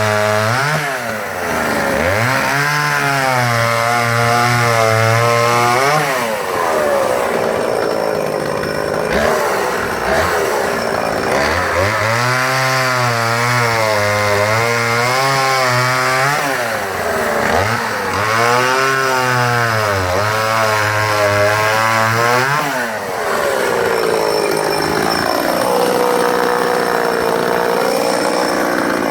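Oleo Mac 233 two-stroke chainsaw cutting through firewood logs, its engine speed swinging up and down under load during three spells of full throttle, falling back to lower revs between them.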